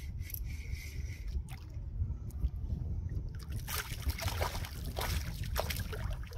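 Hooked redfish (red drum) thrashing and splashing at the water's surface beside the canoe, a run of sharp splashes starting about three and a half seconds in, over a steady low rumble.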